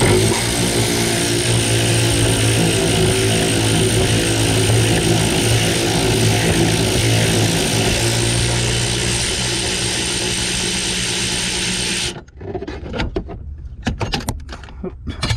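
Power tool running steadily for about twelve seconds, turning a socket on long extensions against a brake booster mounting nut, then cutting off suddenly.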